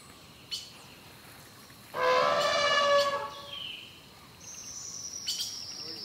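An Asian elephant trumpets once, a loud call lasting just over a second, about two seconds in. Birds chirp around it, with a thin high whistle near the end.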